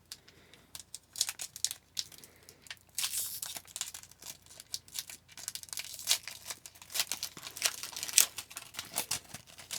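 Hockey card pack wrapper being torn open and crinkled by hand: irregular crackling and tearing, sparse at first and busier from about three seconds in.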